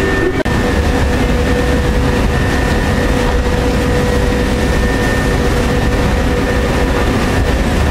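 Bombardier Flexity tram standing at a platform, its onboard equipment humming steadily: a low rumble with a steady whine on top, broken only by a brief dropout about half a second in.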